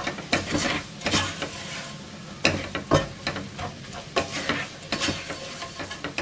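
A spatula is stirring and scraping chopped onions and green onions around a stainless steel pot. It makes irregular short scrapes, several a second, over a soft sizzle of frying.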